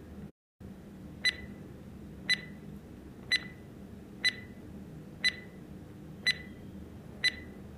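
Countdown timer sound effect: a short, high electronic tick once a second, seven in a row, over a faint low hum.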